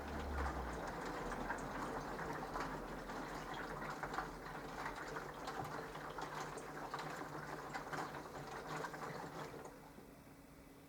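Mini washing machine mid-wash: water and laundry sloshing and splashing in the turning drum, which stops near the end.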